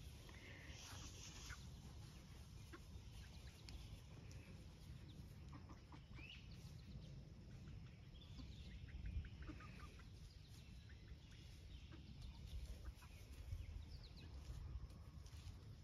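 Faint, scattered soft clucks from domestic hens foraging on grass, a short call here and there over a low background hum.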